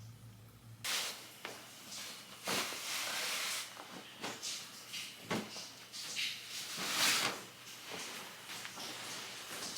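A string of short, irregular knocks, rustles and scrapes from small things being handled and moved about.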